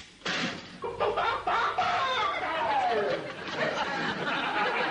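Studio audience laughing, breaking out just after the start and carrying on in one long wave.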